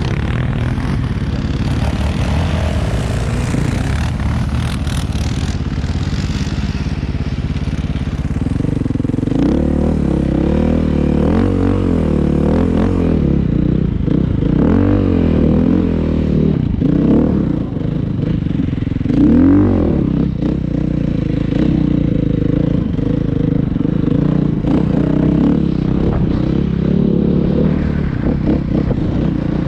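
An engine running steadily. From about nine seconds in its speed rises and falls several times, then it settles to a steadier note.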